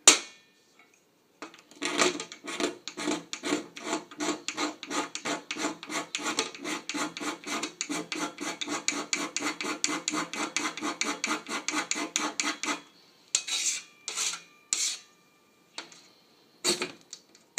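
A firestarter's scraper being sharpened with rapid rasping strokes, about four a second for some eleven seconds, then a handful of slower single strokes near the end.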